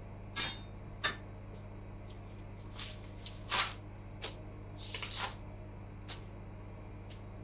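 A series of short handling noises, quick rustles and scrapes at irregular moments, with a longer rustle about five seconds in, over a steady low hum.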